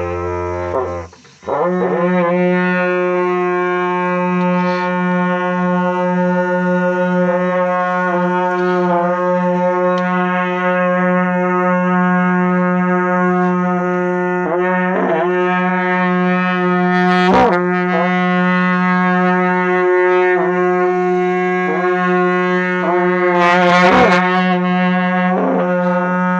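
A pair of dungchen, long Tibetan Buddhist ceremonial horns, blowing. A low drone breaks off about a second in, and then a long steady higher note runs on, with brief swoops in pitch every few seconds.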